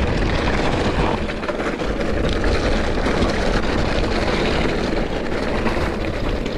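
Wind rushing over a helmet- or bike-mounted action camera's microphone as a mountain bike rolls down an off-road track: a steady, loud low rumble with the rattle of tyres and bike over rough ground.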